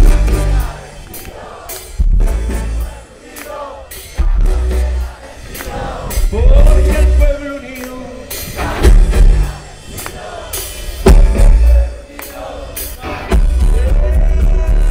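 Live band music played loud through a festival sound system: heavy kick drum and bass, drum kit, guitars and a trumpet and trombone.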